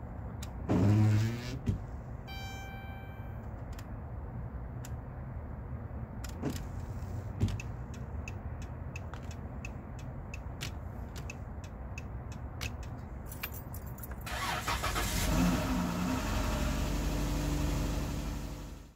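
A short loud sound about a second in. Then a Dodge Grand Caravan's turn signal ticks steadily, and about fourteen seconds in the van's 3.6-litre V6 cranks, starts and runs at a steady idle.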